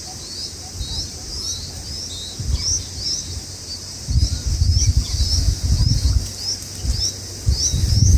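A small bird chirping over and over, about two short rising chirps a second, over a steady high hiss. From about four seconds in, louder low rumbling buffets come and go underneath.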